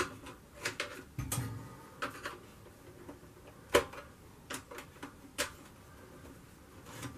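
Irregular sharp clicks and knocks of hands working a retaining clip loose inside a freezer cabinet, about eight in all, the loudest about halfway through.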